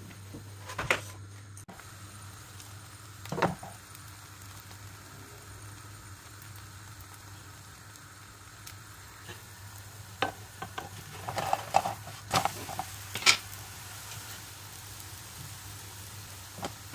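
Thin crepe batter sizzling gently in a nonstick frying pan over a steady low hum, with several sharp clicks and knocks of a utensil against the pan, most of them bunched in the second half.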